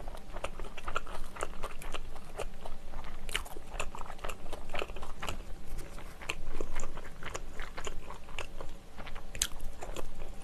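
Close-miked chewing of soft sausage-and-onion bread, a dense run of small mouth smacks and clicks.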